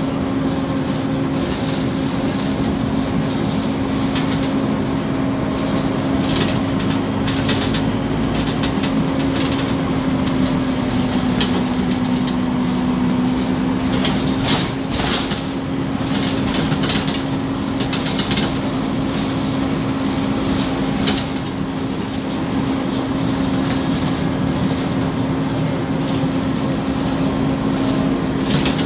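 Inside a Scania OmniCity city bus: the engine and drivetrain drone steadily under a constant whine, with scattered clicks and rattles from the cabin fittings, loudest around the middle.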